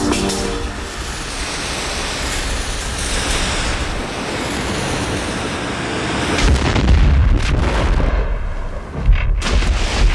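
Film sound effects: a long loud rushing noise whose upper part sinks away over the first few seconds, then a deep rumbling boom from about six seconds in, broken by a sharp hit about nine seconds in.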